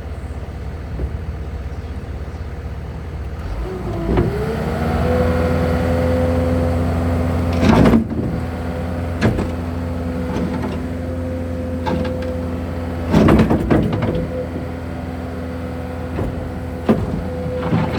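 Takeuchi TL12V2 track skid steer's diesel engine idling, then throttled up about four seconds in and held steady at high revs. Several loud clanks and knocks break in, about eight seconds in, around thirteen seconds and near the end, as the machine works.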